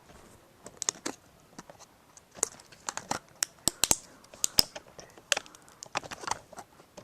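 A stripped-down Wii U Pro Controller being handled, giving irregular sharp plastic clicks and crinkling from its parts and tape. The clicks come thickest around the middle.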